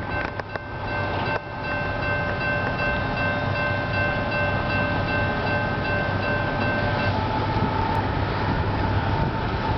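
Railroad grade-crossing bell ringing steadily and stopping about seven seconds in, over the low rumble of an approaching freight train.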